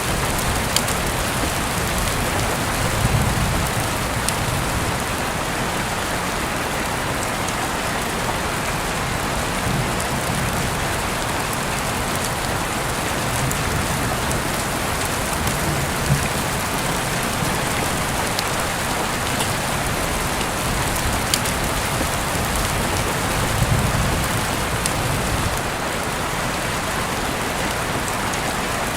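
Steady rain falling, a dense even hiss with a few sharp ticks. Soft low rumbles swell a few seconds in and again near the end.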